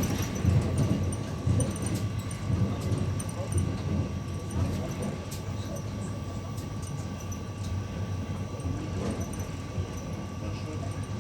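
Passenger train in motion heard from on board: a steady low rumble of the carriage running over the rails, with a constant thin whine and scattered light clicks.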